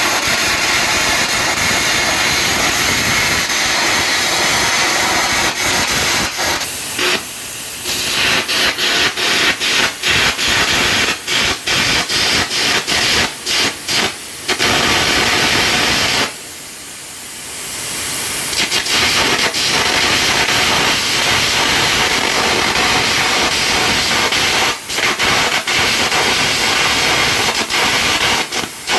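Air carbon arc gouging: the arc's loud, crackling hiss with the compressed-air jet blasting molten metal from the groove, broken by many short dropouts where the arc breaks. About two seconds past the middle it falls quieter for a moment before picking back up.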